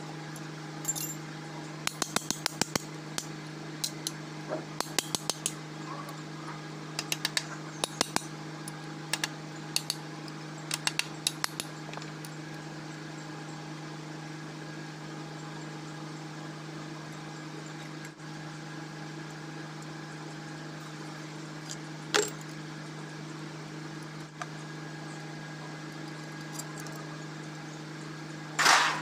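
Wrenches and bolts clinking against the cast-iron front housing of a Kubota M9000 engine in quick runs of metallic clicks during the first twelve seconds, then a couple of single clinks, as the water pump is unbolted. A steady low hum runs underneath.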